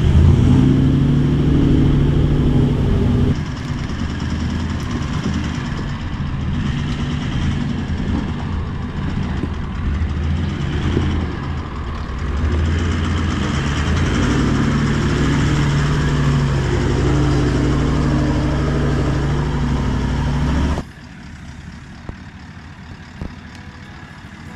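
Toyota LandCruiser 76 Series engine working hard as the four-wheel drive crawls up a rocky track, its note rising and falling with the throttle. The sound drops off suddenly about 21 seconds in, leaving a much quieter, distant engine.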